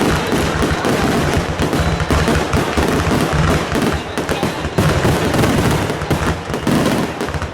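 Consumer fireworks going off in a dense barrage of bangs and crackles, one rapid report after another.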